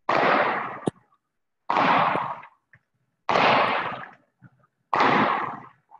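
Four heavy thuds of feet landing from jump squats on a gym floor, about a second and a half apart, each with a short harsh tail, heard over a video call.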